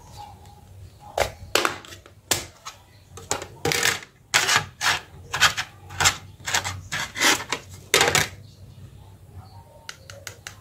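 Plastic back cover of an Asus Z008D (Zenfone 2) being pried off by hand, its clips snapping loose in a quick run of sharp plastic clicks and snaps that stops about eight seconds in. A few faint ticks follow near the end.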